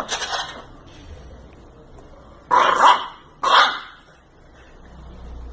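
English bulldog puppy barking in its sleep: three short barks, one at the start and two close together about two and a half seconds in.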